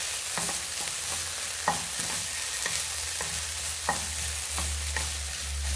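Food frying in hot oil: a steady sizzle with scattered pops and crackles.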